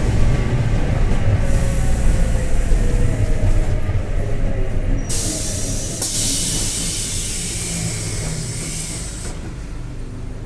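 Mercedes-Benz OF-1721 diesel city bus slowing down, its drivetrain giving a steady rumbling drone with tones falling in pitch, a drone the title puts down to a worn bearing. A hiss of air comes in briefly, then again more loudly for about four seconds from about halfway through.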